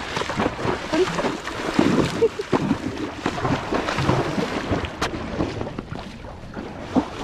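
A horse wading through a shallow pond, its hooves splashing and sloshing through the water in an uneven rhythm.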